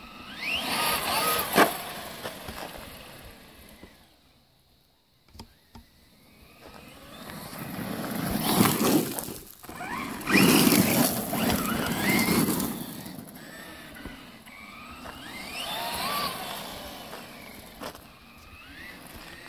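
RC monster truck (Traxxas Slash-based 'Slashpede') running on asphalt and gravel: its motor whines up and down in pitch with the throttle, in three passes, with a sharp knock about a second and a half in. Tyre noise on gravel swells as it runs close by about halfway through.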